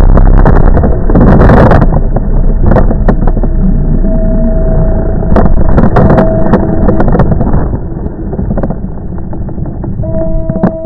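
Onboard-camera audio from a radio-controlled model airplane: loud wind rush on the microphone mixed with the motor's drone, broken by several sharp knocks as the plane comes down in a ploughed field. Near the end a steady motor whine takes over.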